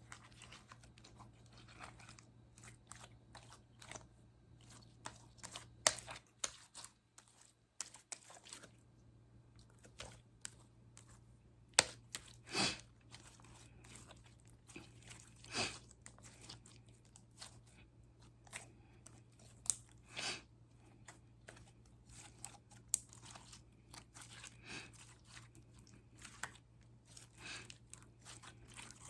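Slime being squeezed and kneaded by hand, giving off irregular small clicks and crackles with several louder pops.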